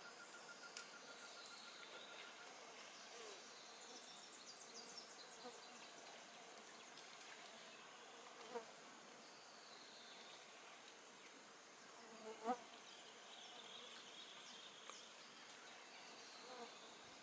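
Faint insect buzzing and chirping, with a steady thin tone for the first couple of seconds and high ticking that repeats throughout. Two short sharp sounds break in, about eight and a half and twelve and a half seconds in, the second louder.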